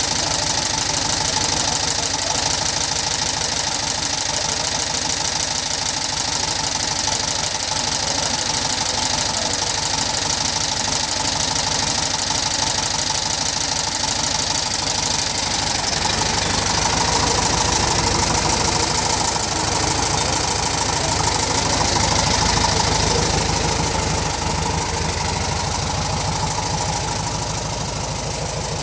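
1958 VW Beetle's air-cooled flat-four engine idling steadily, getting a little louder for a few seconds past the middle before settling back.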